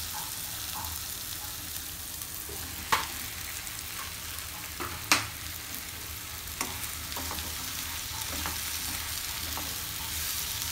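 Onion-tomato masala sizzling in a non-stick kadai as cut button mushrooms are added and stirred in with a plastic spatula. A few sharp knocks come through the sizzle, the loudest about three and five seconds in.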